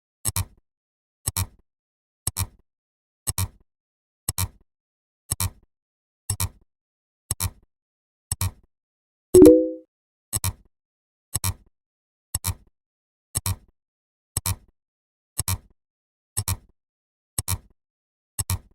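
Counting sound effects: a short, sharp click-like tick about once a second, with a louder, lower pitched blip about nine and a half seconds in.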